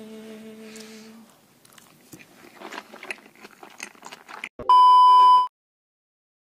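A held sung note fades out, then someone chews a sushi roll with irregular small crunching and clicking sounds. Near the end, a loud steady beep sounds for under a second and cuts off suddenly.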